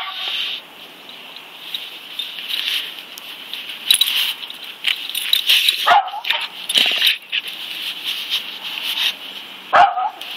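A dog rolling and wriggling on its back in grass, its coat rustling and scuffing against the blades in irregular bursts. There are a couple of short dog sounds: one about six seconds in and one near the end.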